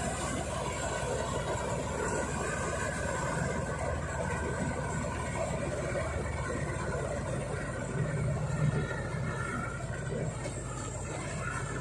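Mini combine harvester on a John Deere 5045D tractor, its three-cylinder diesel engine and threshing machinery running steadily while cutting standing wheat, with a brief louder surge about eight seconds in.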